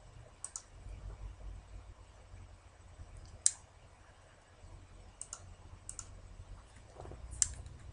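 Faint clicks of a computer mouse, about half a dozen spaced over several seconds, some in quick pairs, over a low steady hum.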